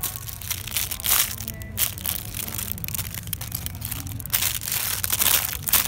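Crinkling of the clear plastic wrapping on squishy toys as they are grabbed and handled, in irregular bursts that are densest near the end, over a low steady hum.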